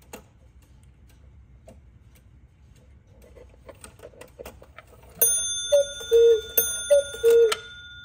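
Hönes 8-day Black Forest cuckoo clock: faint ticking and clicking of the movement as the minute hand is pushed round, then the strike train runs. A metallic strike sounds, and then the two-note cuckoo call of the bellows whistles, higher then lower, twice, leaving a ringing tone that hangs on.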